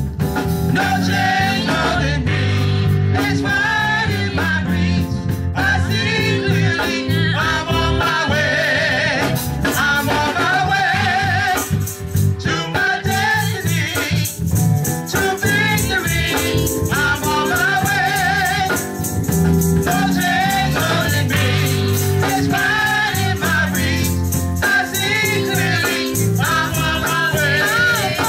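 A small group of gospel singers singing with vibrato over live accompaniment, with steady bass notes and an even rattling percussion beat.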